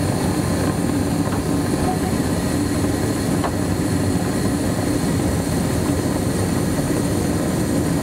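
2002 Carrier Infinity single-stage, three-burner 75,000 BTU gas furnace running with its covers off: burners lit and inducer fan running, a steady rushing noise over a constant low hum.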